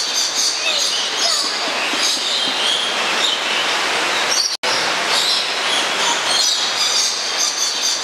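Many birds chirping and squeaking over the steady rush of a waterfall. The sound cuts out for an instant about four and a half seconds in.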